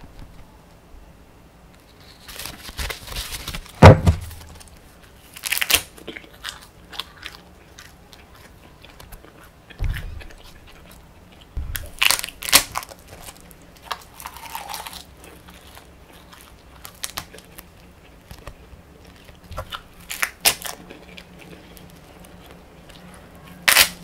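Crisp bites and crunching into thin edible sheets made to look like coloured paper, with chewing close to the microphone. There are about half a dozen sharp snaps spread apart with quieter stretches between them; the loudest comes about four seconds in, after a few seconds of rustling as the sheets are handled.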